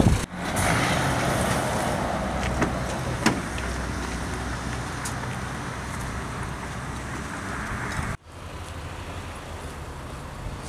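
Steady vehicle engine and road noise with a low hum. It cuts off sharply just after the start and again about eight seconds in, and is quieter after the second cut.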